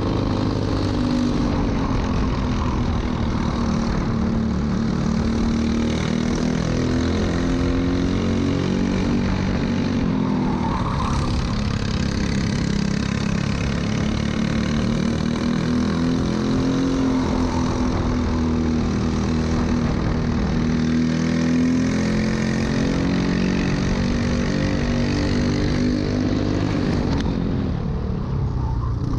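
Briggs & Stratton LO206 single-cylinder four-stroke kart engine running at racing speed. Its pitch drops as the kart slows for a corner about ten seconds in, climbs again under acceleration, and dips once more near the end.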